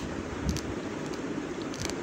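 Raw basmati rice grains being chewed: a few sharp crunches, about half a second in and again near the end, in a rough chewing rhythm over a steady low background rumble.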